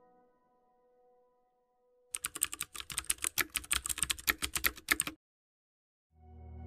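Typing sound effect: a rapid run of key clicks, about eight to ten a second, starting about two seconds in and stopping sharply about three seconds later. Near the end a low, steady music drone fades in.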